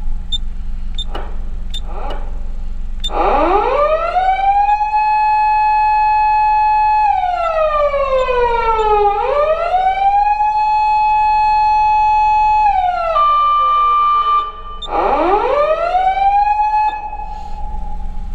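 SAP-500 FBZ electronic siren amplifier sounding a fire-engine siren. After two short blips, the tone climbs fast to a held pitch, slides down and back up, and winds up again near the end, over a steady low hum.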